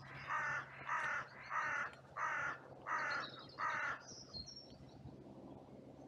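Carrion crow giving six caws in an evenly spaced series, about one every two-thirds of a second. A small bird chirps briefly just after the last caw.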